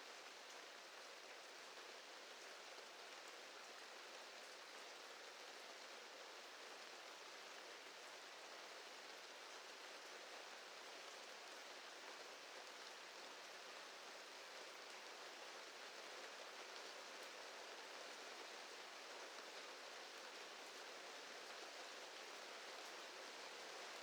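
Soft, steady rain falling, an even hiss with occasional faint drop ticks.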